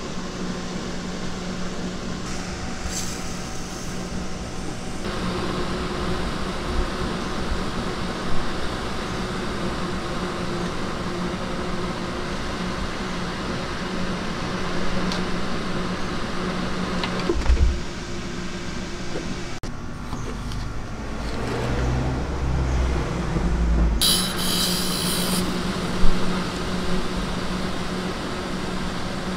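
Cotton candy machine running with a steady motor hum as its spinner head turns. A low thump and a brief low rumble come past the middle.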